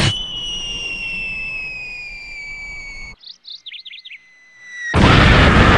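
Cartoon falling-bomb whistle, one long tone sliding slowly down in pitch. It drops away to a few bird chirps over near quiet, and about five seconds in loud music and a blast cut in.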